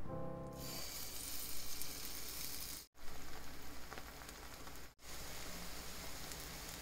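Kimchi pancake batter sizzling as it fries in hot oil in a nonstick pan, a steady crackling hiss that breaks off twice for an instant.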